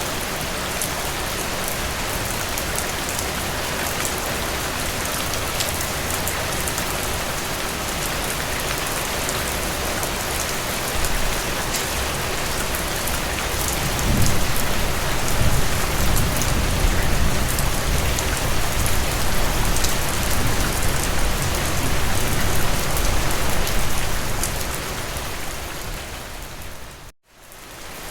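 Steady rain falling, with fine drop patter throughout. About halfway through a low rumble swells in under the rain and lingers, then the whole sound dips out briefly near the end and comes back.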